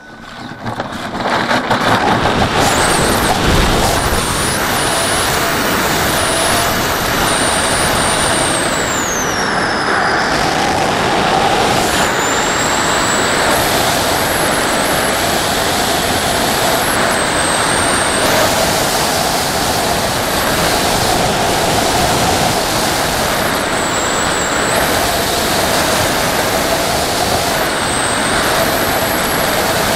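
Loud steady rush of airflow buffeting an onboard camera on an RC model glider, swelling sharply over the first two seconds as the aerotow takeoff run begins. A faint steady hum and a thin high whine that shifts in pitch now and then run under the rush.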